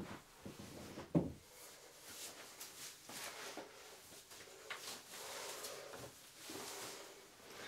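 Clothes rustling and being handled as someone changes into a shirt, with one sharp knock about a second in.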